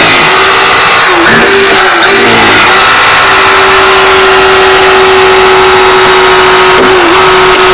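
Hurst eDraulic battery-powered hydraulic spreader running under load with its tips in a car's door gap: a loud, steady motor-and-pump whine that settles into a held tone, dipping briefly near the end.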